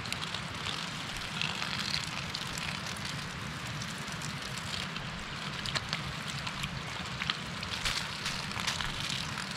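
Water running from an improvised plastic-bag faucet with its stopper pulled out, splashing in small irregular spatters over a steady hiss.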